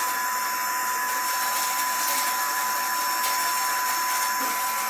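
Vacuum cleaner with a long hose and floor tool running steadily, with a constant whine, as it is pushed over a dusty tiled floor to pick up sanding dust.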